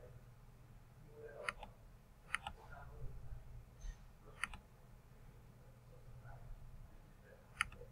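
Computer mouse clicking: four separate sharp clicks, spaced one to three seconds apart, over a faint steady low hum.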